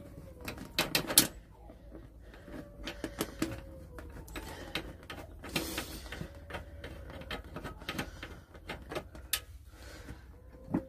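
Socket wrench ratcheting, with metal clicks and knocks, as the airbox bolts on an Aprilia RS125 are undone with an 8mm socket. The clicks come in irregular clusters, the loudest about a second in.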